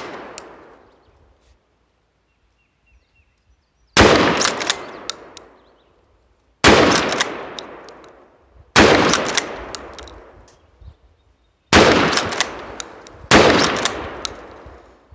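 Five shots from a Charles Daly 301 12-gauge pump-action shotgun, the first about four seconds in, then one every two to three seconds. Each is a sharp report with an echo that trails off over a second or two, with the clack of the slide being racked after each shot.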